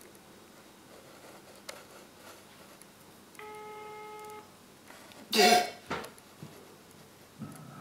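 Telephone ringback tone heard over a phone's speaker: one steady ring of about a second, starting about three and a half seconds in, the sign that the call is still ringing and has not been answered. A loud, brief noisy burst about five and a half seconds in.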